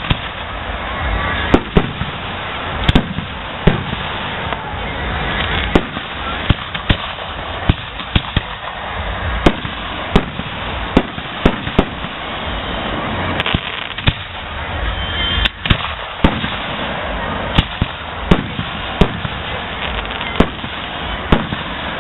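Aerial fireworks display: shells bursting in a rapid, irregular string of sharp bangs, about one or two a second, over a continuous background din.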